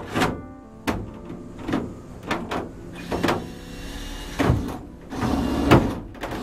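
Cordless drill running in short bursts, driving screws through clear corrugated plastic roof panels, with sharp knocks and rattles from the panels about once a second.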